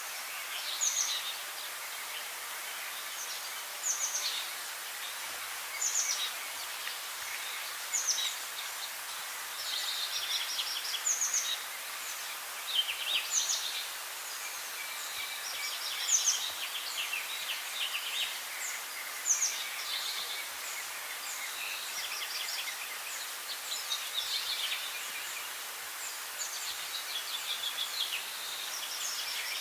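Songbirds singing in short phrases of high chirps and rapid trills, coming every second or two over a steady background hiss.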